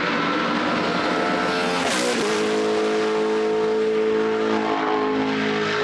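GT race car engines running at speed on track. One car passes close about two seconds in, its engine note dropping as it goes by.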